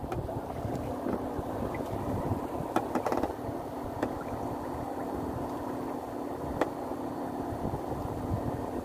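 Steady low hum of a boat engine running, with wind and water noise. A few light clicks break in, the sharpest about two-thirds of the way through.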